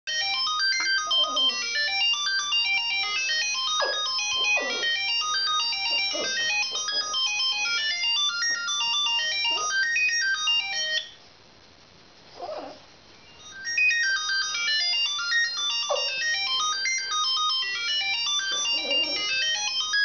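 A mobile phone ringtone plays a fast synthesized melody while a Lhasa Apso howls along in short notes that slide up and down. The ringtone stops for about three seconds midway, leaving one howl on its own, then starts again.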